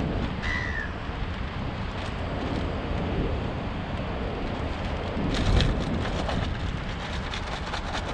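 Plastic zip-lock bag crinkling and rustling as chopped herbs are scraped off a plastic cutting board into it and the bag is handled, loudest about five to six seconds in, over a steady rushing background noise.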